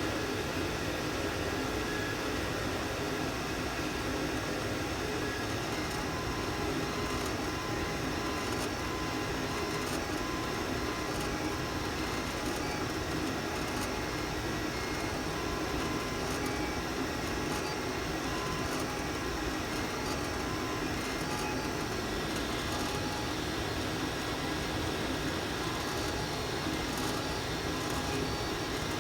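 FLSUN delta 3D printer running as it finishes the last layers of a print: a steady whir of its cooling fans with short, changing stepper-motor tones.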